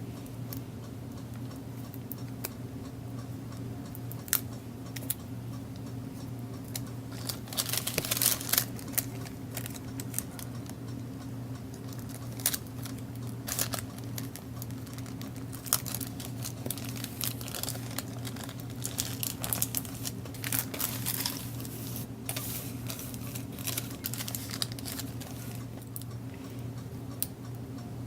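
Cellophane bags and paper being handled on a tabletop: scattered small clicks and taps, with two longer spells of crinkling about eight seconds in and again around twenty seconds. A steady low electrical hum runs underneath.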